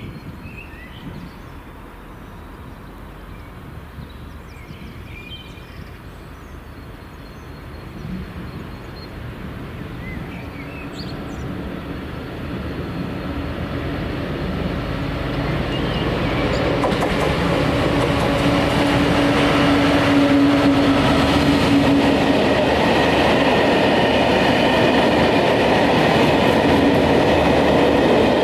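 Diesel-hauled freight train approaching and growing steadily louder over about fifteen seconds, then passing close at a steady loud level with the running noise of the locomotive and the wheels and wagons on the rails.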